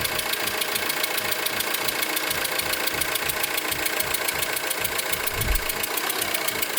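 Renault 1.9 dCi four-cylinder diesel idling with a fast, even ticking and a hissing noise: exhaust gas blowing past a leaking copper injector washer between the injector and its seat.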